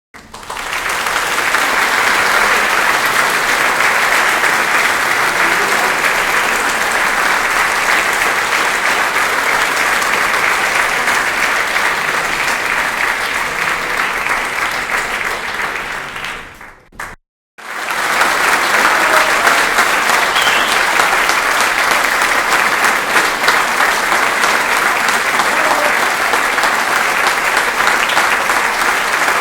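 Crowd applause: many people clapping steadily, dense and loud. It fades out about sixteen seconds in, stops for about a second, and a second round of applause starts up and keeps going.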